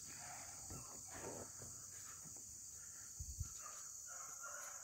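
Faint, steady high-pitched chorus of crickets and other insects, with a soft bump a little over three seconds in.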